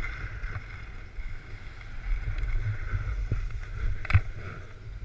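Skis hissing and scraping over groomed snow, with wind rumbling on the action camera's microphone. A single sharp clack comes about four seconds in, as the skier pulls up beside others.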